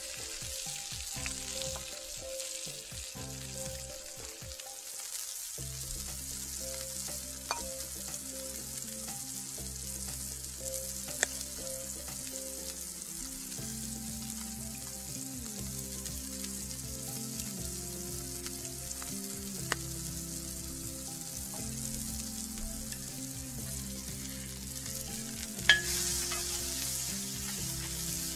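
Smash-burger beef patties sizzling steadily on a hot griddle over charcoal, with a few sharp metallic clicks of a spatula on the griddle and a louder clack near the end as a patty is smashed down, the sizzle growing brighter after it. Background music with low notes runs underneath from about five seconds in.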